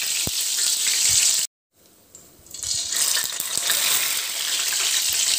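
Urad dal vada batter deep-frying in hot oil in a kadai: a steady sizzle. It cuts out for a moment about a second and a half in, then builds back up.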